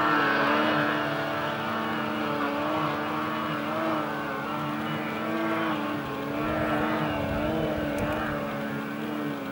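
Arctic Cat M1000 snowmobile's two-stroke twin engine running hard as the sled climbs a snow slope. Its pitch rises and falls in gentle waves with the throttle.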